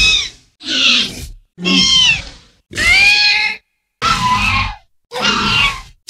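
Xenomorph creature sound effects: a run of about six short screeches and hisses, one roughly every second with brief gaps, some swooping in pitch.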